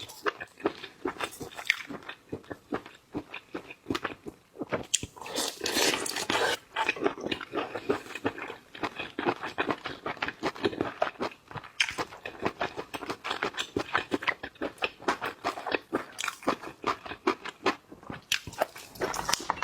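Close-miked crunching, cracking and chewing of shellfish being eaten, a dense run of sharp cracks and clicks.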